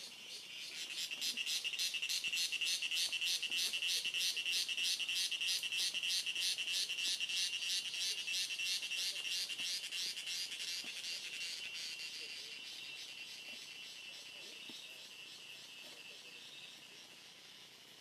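An insect calling with a shrill, rapidly pulsing buzz. It swells up within the first second, stays loud for about ten seconds, then slowly fades.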